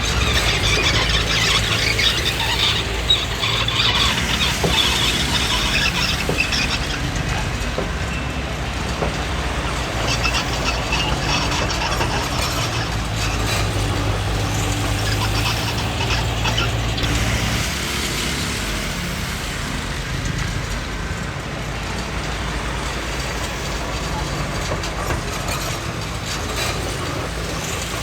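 Komatsu D20P crawler bulldozer working: its diesel engine runs steadily under the high squeal and clatter of its steel tracks, the squealing strongest in the first few seconds.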